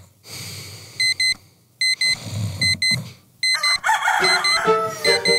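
Bedside electronic alarm clock beeping, short high beeps in quick pairs repeating, over a sleeping man's slow snoring breaths. About three and a half seconds in, music with bowed strings comes in over the beeping.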